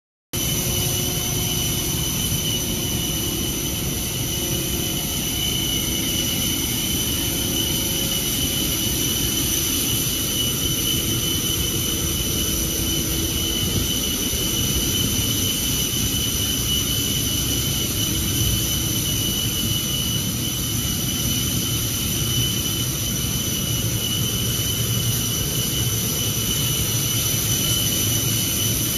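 Jet turbine running steadily at an airport ramp: a constant rushing noise with a steady high-pitched whine on top, cutting in abruptly just after the start.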